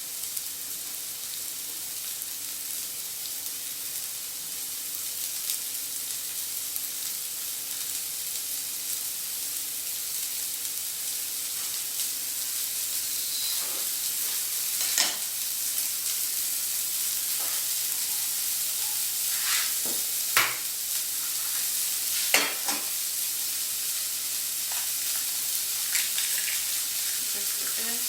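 Diced vegetables sizzling in oil in a frying pan, the sizzle growing a little louder, with a few sharp clicks and scrapes from a utensil stirring and spreading them.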